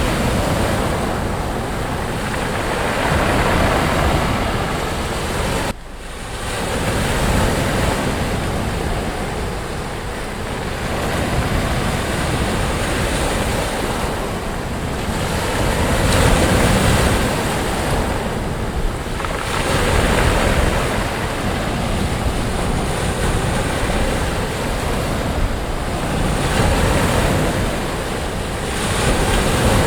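Sea waves breaking and washing up on a sandy beach, the surf swelling and ebbing every few seconds. There is a brief sudden drop in level about six seconds in.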